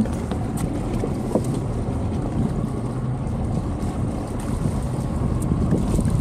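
Steady wind rumbling on the microphone over open water.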